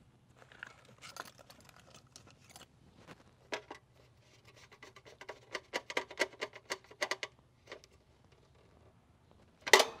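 Light clicks and taps of small parts and wires being handled against a sheet-metal electrical panel, with a quick run of clicks in the middle of the stretch and a louder rattle just before the end.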